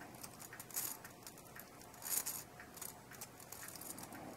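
Faint handling noise from a brass clock movement held in the hands: soft rustles and a few light metallic clicks, the clearest about a second in and about two seconds in.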